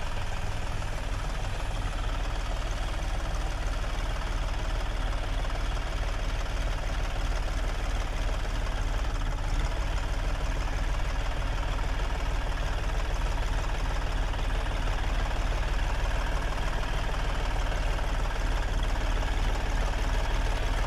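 John Deere tractor's diesel engine running steadily under load as it pulls a potato planter, growing slightly louder as the tractor draws closer.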